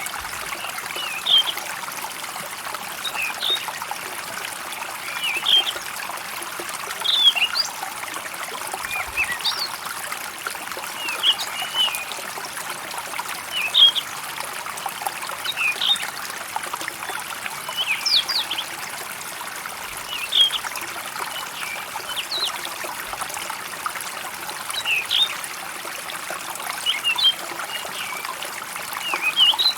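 A small stream trickling steadily, with birds chirping over it in short, high calls every second or two.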